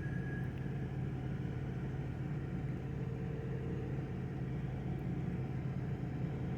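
Steady low mechanical hum and rumble, unchanging throughout, with a faint high tone that fades out about half a second in.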